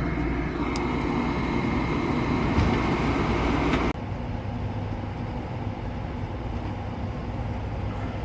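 Gas furnace running with its blower on a newly replaced capacitor: a steady rush of air and motor noise with a faint high whine. The level drops abruptly about four seconds in, then carries on steadily.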